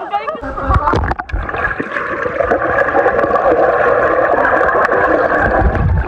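Splashing as a camera goes under the surface of a swimming pool, then the steady, muffled rushing and gurgling of water heard with the microphone submerged.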